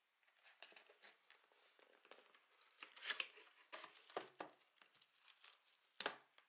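Paperboard donut box being opened by hand: irregular crinkling and crackling of the cardboard flaps and a sticker seal pulled loose, loudest about three seconds in and again near the end.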